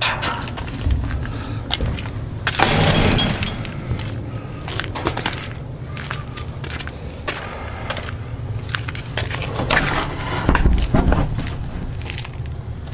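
Clatter, knocks and rustling of trash being handled at a dumpster, with a noisy stretch of rustling about three seconds in and a low thump at about ten and a half seconds.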